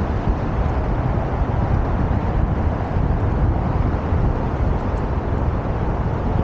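Steady wind buffeting on the microphone of a camera carried along by a rider on a moving Onewheel, mixed with the rumble of the board's tyre rolling on asphalt. It is a loud, even rush that is heaviest in the low end, with no motor whine standing out.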